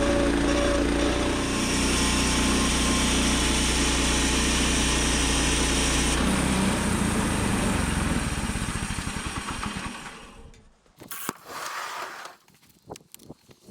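Woodland Mills 122 sawmill's 7-horsepower engine running steadily under load as the band blade saws through a cherry log. About six seconds in the sound changes as the cut ends, then the engine dies away about ten seconds in, leaving a few sharp clicks and knocks.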